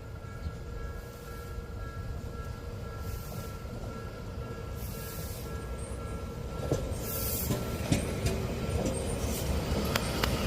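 Odakyu Line electric train approaching, growing louder through the second half, with sharp wheel clicks over the rail joints and bursts of wheel hiss.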